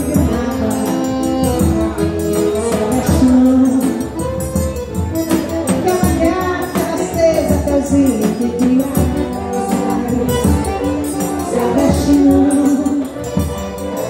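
Live forró: a woman singing while beating a steel triangle in a steady jingling rhythm, over the deep strokes of a zabumba bass drum.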